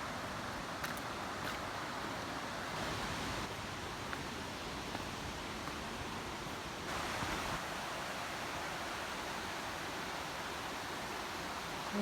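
A waterfall's steady rush of falling water, an even hiss with no pitch that grows a little brighter about seven seconds in.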